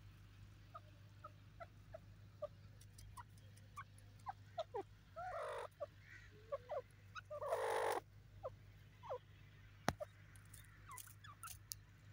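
Grey francolin giving short, soft clucks and chirps scattered throughout, with two louder, longer calls about halfway and two-thirds of the way through. A single sharp click comes soon after the second call, over a steady low hum.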